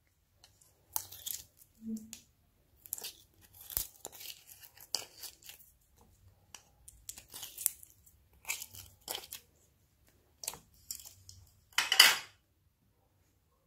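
Glossy slime being poured and pressed by hand, giving short, irregular sticky crackles, with one louder burst near the end.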